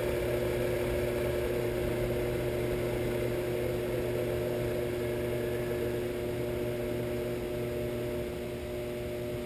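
A Shopsmith 10ER running steadily in high range, driven by a Leeson 3/4 HP DC motor through the belt and freshly trued pulleys. It gives a steady hum with a few constant tones and runs smoothly. The sound eases slightly near the end.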